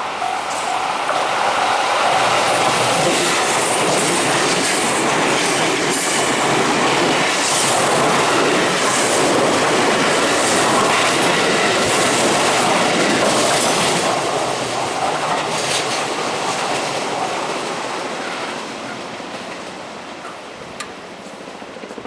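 Electric commuter train passing over a level crossing, its wheels clattering over the rail joints, loud for about fifteen seconds and then fading away. A level-crossing warning bell rings in even pulses at the start before the train covers it.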